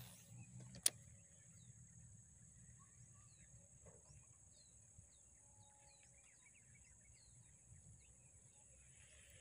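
Faint open-country ambience: scattered small bird chirps over a steady high insect drone, with one sharp click just under a second in.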